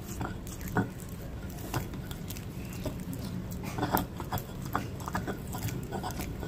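Peanut sauce being ground and mashed by hand in a mortar with a pestle: irregular wet knocks, scrapes and squelches, with a few sharper knocks about four seconds in.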